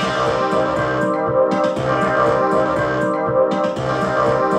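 Korg Volca synthesizers playing together as a sequenced electronic groove: a synth bass line and a Volca Beats drum pattern under a synth trumpet part, looping steadily while one unit's knob is turned.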